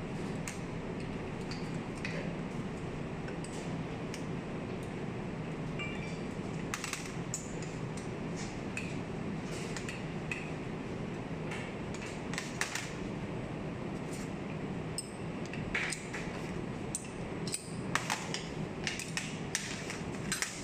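Hex keys and small metal tools clicking and clinking against a metal machine frame and table as bolts are fitted and tightened by hand, over a steady low hum. The clicks come scattered, thicker in the second half.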